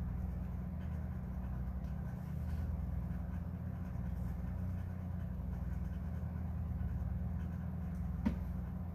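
Steady low hum, with one sharp click about eight seconds in.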